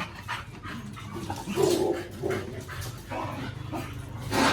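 Dogs barking in short, separate bursts, the loudest near the end.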